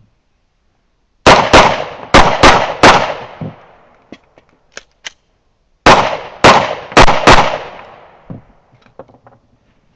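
Pistol shots fired at speed, a string of five quick shots, a pause of about three seconds, then four more, each followed by a short echo. A few faint clicks fall in the pause and after the last shot.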